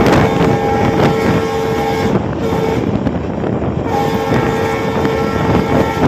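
Train horn sounding as the express runs through a station without stopping. It gives a long blast, a short one a little after two seconds in, and another long blast from about four seconds in. The blasts carry over the steady rumble of the coaches on the rails and wind on the microphone.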